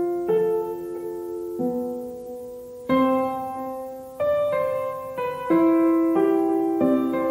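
Background music: slow piano chords, each struck and left to ring and fade before the next, about one a second.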